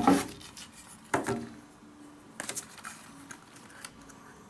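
Small Japanese folding pruning saw and a wooden board being handled: a sharp clack right at the start and another about a second in, then a short scratchy rasp of the saw teeth on the wood about two and a half seconds in.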